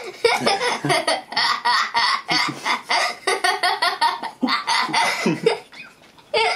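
A young girl laughing hard in quick repeated bursts. The laughter dies down briefly near the end, then breaks out again.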